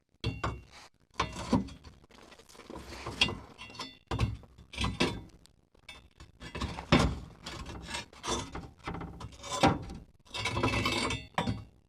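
Irregular metal knocks, scrapes and rattles as a steel truck crossmember is worked into place against a pickup's frame, with a steadier rasping stretch near the end.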